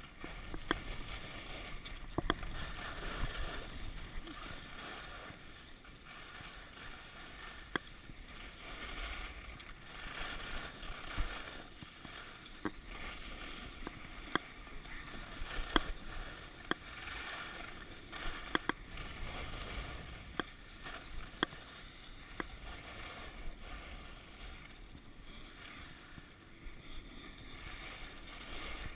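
Skis sliding and scraping over packed snow on a downhill run, a hiss that swells and fades with each turn, with wind buffeting the microphone and scattered sharp clicks.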